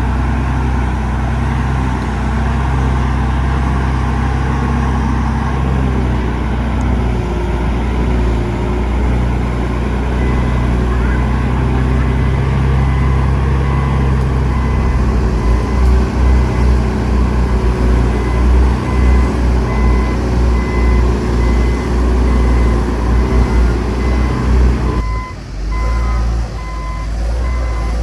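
Heavy diesel machinery (a dump truck or bulldozer) running loud and steady, with a reversing alarm beeping evenly from about ten seconds in. In the second half the low engine rumble pulses, as under changing load, and it briefly drops near the end while the beeping goes on.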